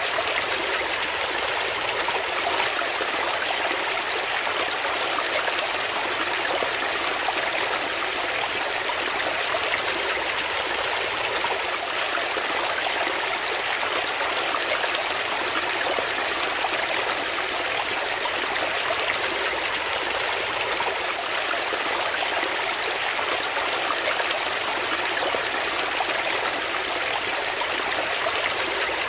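Shallow brook water running steadily over rocks in small cascades: a continuous, close splashing that is mostly high-pitched, with little low rumble.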